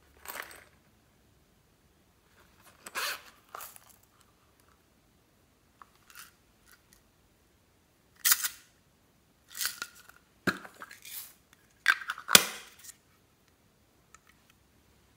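Small plastic makeup compact cases handled between the fingers: a series of short plastic rustles and taps, with a few sharp clicks in the second half.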